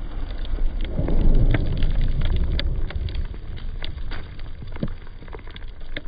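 Debris from a washing machine blown apart by Tannerite raining down: many small pieces ticking and pattering irregularly on the ground, over a low rumble that is loudest about a second or two in.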